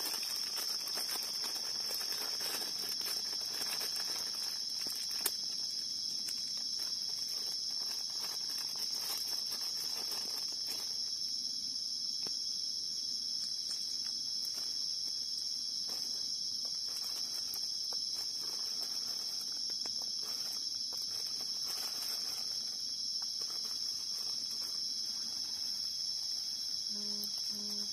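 Steady, high-pitched chorus of night insects trilling without a break, with faint rustling and handling noises and a small click about five seconds in.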